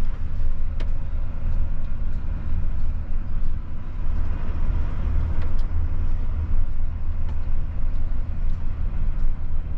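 A truck's diesel engine running with a steady low rumble, heard from inside the cab as the truck is driven, with a few light clicks and knocks.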